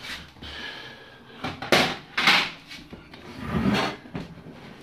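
Handling noises: scrapes and a few sharp knocks, the loudest about two seconds in, followed by a duller thump, as things are shifted about by hand.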